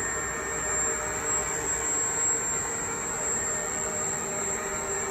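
Hurco Hawk 40 CNC milling machine running its spindle warm-up cycle: a steady mechanical hum with a constant high-pitched whine.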